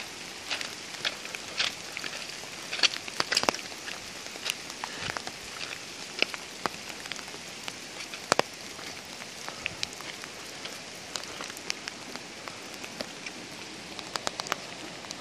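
Steady rain: an even hiss with many scattered sharp ticks of drops striking close by, at irregular intervals.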